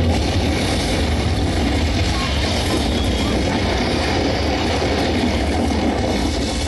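A loud, deep rushing sound effect from a light show's sound system, coming in suddenly at the start and holding steady.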